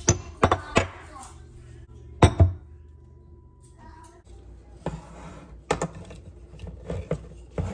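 Pestle knocking and grinding dried rosemary in a mortar, a run of irregular knocks and scrapes, the loudest a little over two seconds in.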